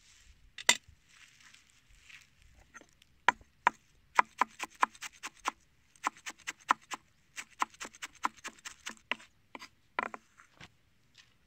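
Chef's knife chopping fresh parsley on a wooden cutting board. First a soft rustle of the leaves being gathered with one sharp knock, then runs of quick, sharp knife taps on the board, several a second, stopping near the end.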